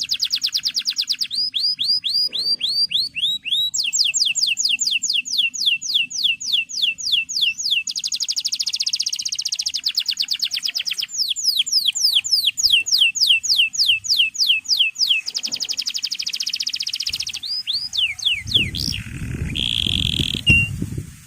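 Male canary singing: fast trills of repeated high notes sweeping downward, in phrases of changing speed with brief pauses between them. In the last few seconds a low rumbling noise comes in under a short held note.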